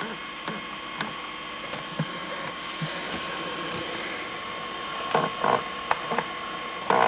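Power zoom motor of a 1986 JVC GR-C7 VHS-C camcorder whirring, picked up by the camcorder's own microphone, with scattered clicks and a few knocks near the end.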